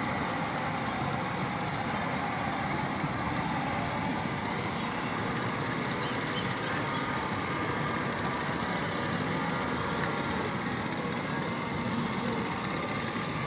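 Steady mixed din of a large crowd and motorboat engines, with no single sound standing out.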